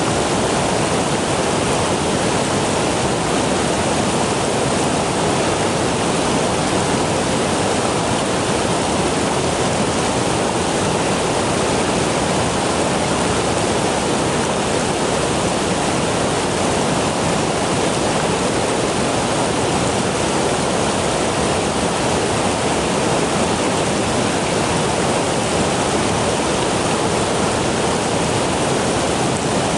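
Steady rush of fast-flowing stream water, an even, unbroken roar.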